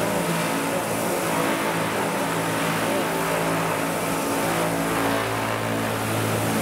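Vario CH-47 Chinook scale model helicopter in flight, its tandem rotors and drive giving a steady drone with a low hum.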